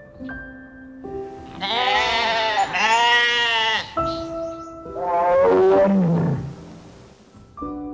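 An animal calling over background music: two short arched calls about two and three seconds in, then a longer call that falls in pitch a little past the middle.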